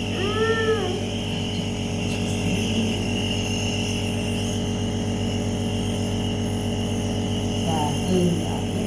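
A steady mechanical drone with a low hum. In the first second a young child gives a short whimper.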